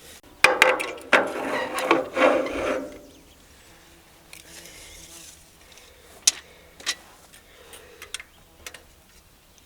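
Rough scraping and rubbing for about two and a half seconds, then a few light sharp clicks.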